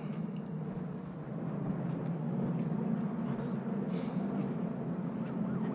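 Steady low rumble of distant city traffic, with a brief hiss about four seconds in.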